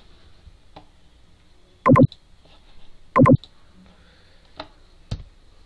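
Two short, loud knocks a little over a second apart, with a few faint clicks around them, from handling at the computer as the screen switches programs.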